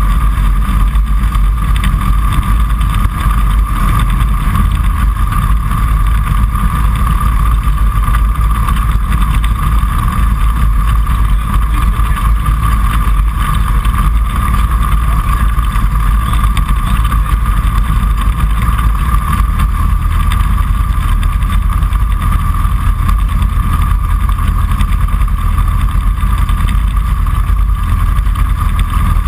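Series 5 Kitfox light aircraft's engine and propeller running steadily, heard from inside the open-framed cockpit as a loud, even drone with a steady high hum above it.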